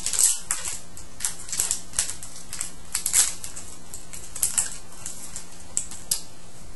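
Foil trading-card pack wrapper being torn open and crumpled by hand: irregular sharp crinkling crackles, loudest about three seconds in, with a faint steady hum underneath.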